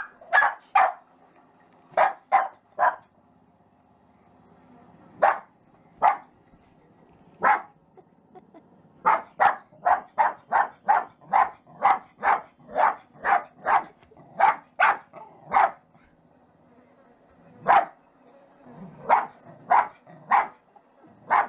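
Jack Russell terrier barking: short, sharp barks in scattered ones and twos, then a fast run of about two barks a second lasting several seconds in the middle, then a few more near the end.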